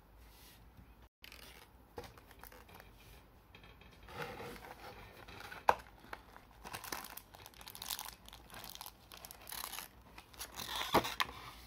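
Clear plastic blister tray and its paper insert being handled and opened, crinkling and crackling in uneven bursts. A sharp snap of the plastic comes just before the middle and another near the end, the loudest moments.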